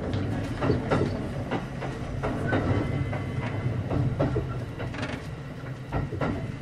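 Kintetsu 5800 series electric train running, heard from inside the car: a steady low rumble with an irregular run of wheel clicks over rail joints.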